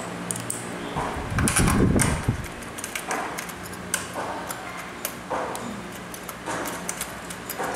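Irregular small clicks, taps and clatter of metal parts being handled as a handle clamp is bolted onto a pole pruner's shaft with a hex key.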